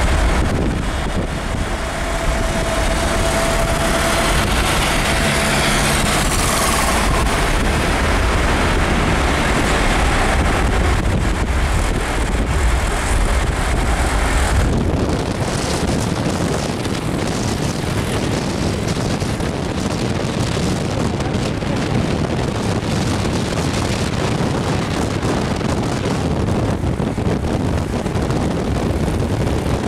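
Steady road noise from a moving car, with wind on the microphone and the engines and tyres of passing traffic. About halfway through the low rumble eases and a brighter hiss takes over.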